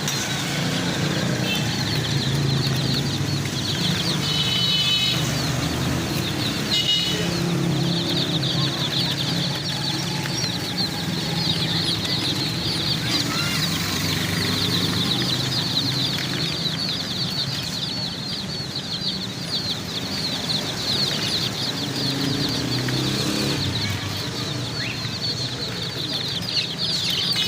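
A crowd of baby chicks peeping continuously, a dense chorus of short high chirps that thickens about a third of the way in, over a steady low hum.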